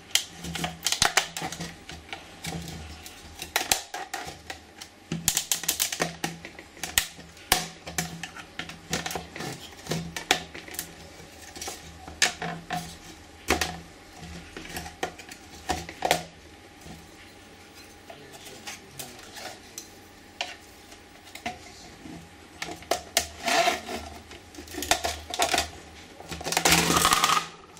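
A flat screwdriver prying the plastic bezel off a Fiat 128 instrument cluster housing: irregular clicks and small knocks of the blade and the plastic, with a longer scraping stretch near the end.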